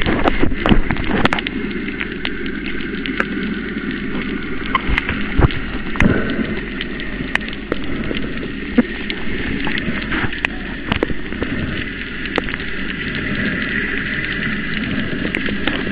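Underwater sound picked up by a camera among reef fish: a steady muffled water noise scattered with sharp clicks and crackles, which are denser and louder in the first second or two.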